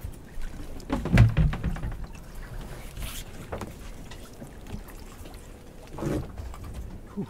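Wet lobster-pot rope being hauled in by hand over the side of a small boat, with a few knocks against the hull, the loudest about a second in.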